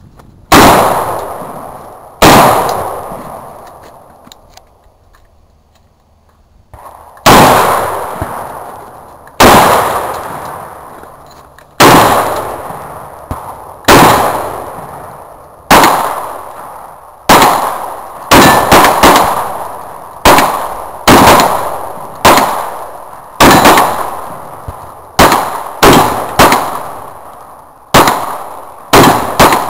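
A gun fired shot after shot, about two dozen rounds, each sharp crack echoing and dying away. The first shots come a couple of seconds apart after a short pause, and the pace picks up to quick strings in the second half.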